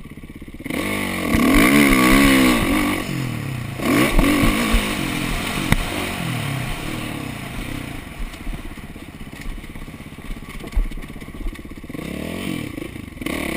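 2012 Kawasaki KX450F single-cylinder four-stroke motocross engine being ridden hard: quiet for the first moment, then the throttle opens about a second in and the revs rise and fall repeatedly through the gears, loudest in the first few seconds. Occasional sharp knocks from the bike over the rough track.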